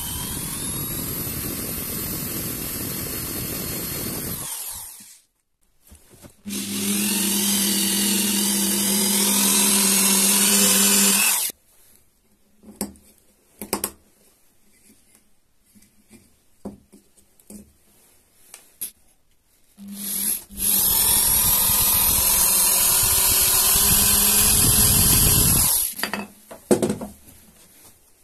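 Power drill with a twist bit and depth-stop collar boring into the end grain of a pine stick, running in three spells of about five seconds each, the second and third louder with a steady hum. Between them come small knocks and rubbing as the wood is handled.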